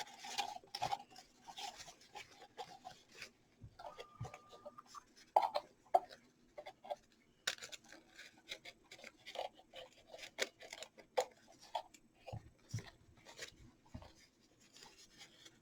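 Soft rustling and scattered small clicks of ribbon being handled, over a faint steady hum.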